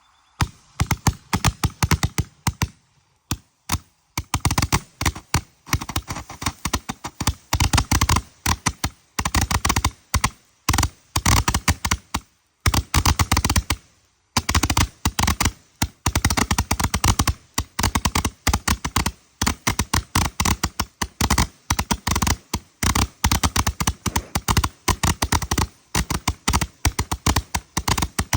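A 420-shot bar Roman candle firework (Puff Puff Pass) firing a fast, crackling stream of small shots, many a second. It pauses briefly about three seconds in and again around twelve to fourteen seconds in.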